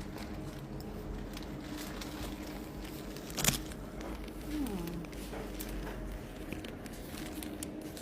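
Shop background: a steady low hum with faint handling noises and one sharp click about three and a half seconds in.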